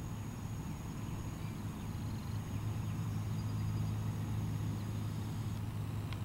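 A steady low hum with a few faint, brief high chirps and a sharp click at the very end.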